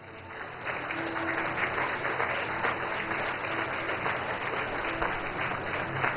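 Cinema audience applauding, building up over the first second and then holding steady.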